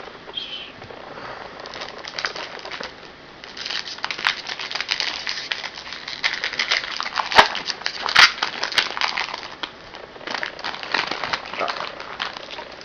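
Crinkling and crackling of a trading-card pack wrapper being torn open and handled, with a few sharper snaps in the middle.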